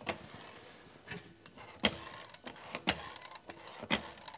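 Hydraulic floor jack being pumped to lift a lower control arm, a sharp click about once a second with each stroke of the handle.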